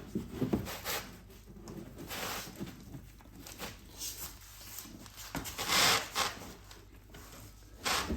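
Irregular rustling and scraping of parts being handled, with the loudest scrape about six seconds in and a shorter one near the end.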